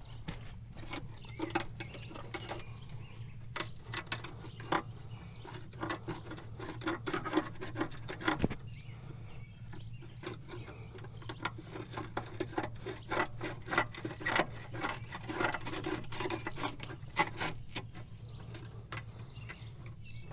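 Hand tools working on hydraulic fittings: irregular metal clicks, taps and scraping, with a steady low hum underneath.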